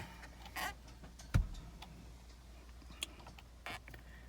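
Screwdriver clicking and knocking against the plastic of a BMW F30 steering wheel while probing for the airbag release clip: a few scattered sharp clicks, the loudest about a second and a half in.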